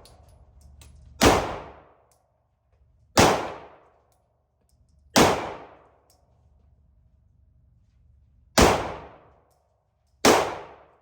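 Five shots from a Smith & Wesson compact 9mm pistol, fired one at a time about two seconds apart, each with a short echoing tail.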